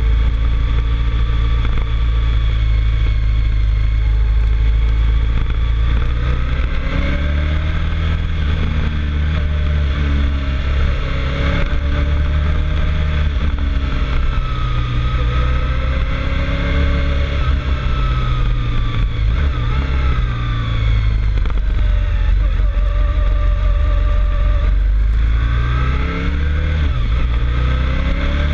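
Vehicle engine climbing a mountain road, its pitch rising and falling again and again as it pulls through the bends, over a heavy, steady low rumble.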